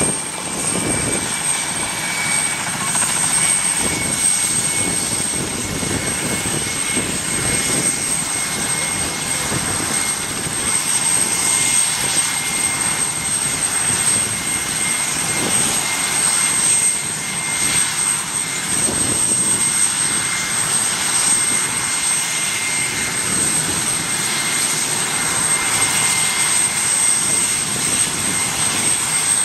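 PZL W-3A Sokół helicopter's twin turboshaft engines running on the ground with the rotors turning: a steady high turbine whine over the constant noise of the rotors.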